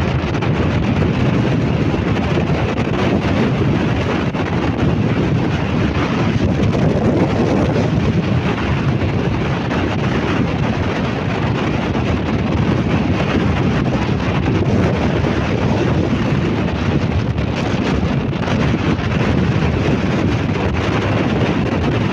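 Steady, loud rush of a waterfall, with no breaks or separate events.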